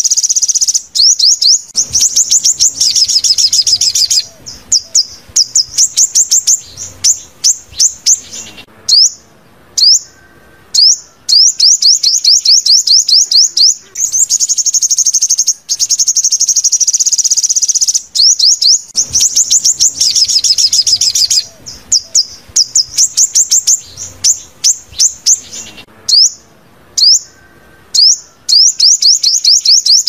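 Sunbird song: rapid trills of high, down-slurred notes alternating with dense, buzzy stretches, in repeated loud phrases broken by short pauses.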